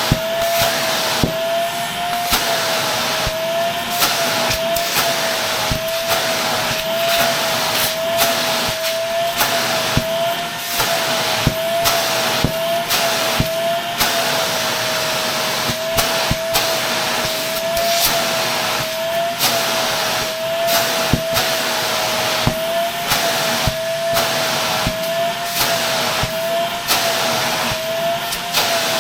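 Shark Navigator Lift-Away vacuum running with a steady high motor whine that wavers slightly, over the rush of suction air, while it vacuums another Shark vacuum's filter. Frequent sharp clicks and knocks come through the suction noise.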